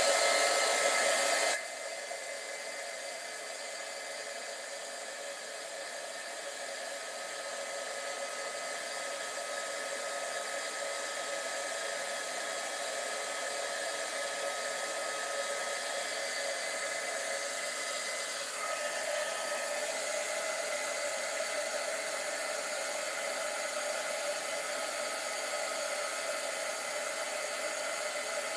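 Embossing heat tool switched on and blowing hot air steadily, a fan rush with a thin whine, melting embossing powder on a stamped paper label. It is loudest for the first second and a half, then settles to an even level.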